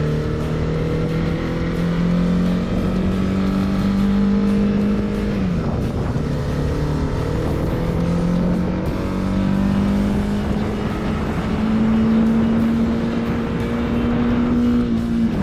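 Honda CB300R's single-cylinder engine under way, its pitch climbing steadily, dropping sharply about five seconds in, then climbing again and dropping right at the end, over steady wind and road noise.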